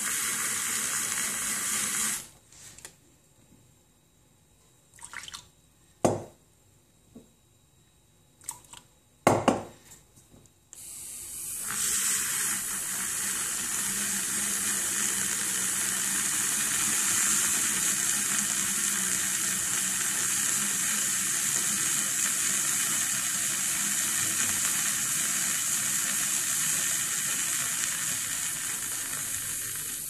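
Handheld milk frother whirring in a stainless steel pitcher, churning milk into foam with a steady, watery sound. It stops about two seconds in, a few sharp knocks follow, and it runs again from about eleven seconds on.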